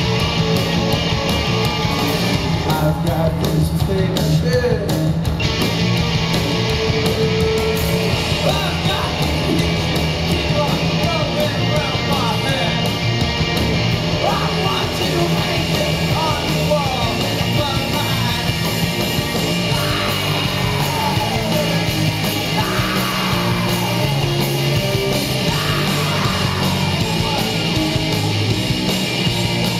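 Live rock band playing at full volume: distorted electric guitars, bass and drums, with shouted vocals.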